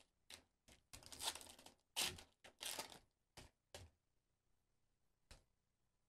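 Foil Pokémon booster pack being torn open and crinkled, a string of short, soft tearing rustles over the first four seconds, with one more brief rustle about five seconds in.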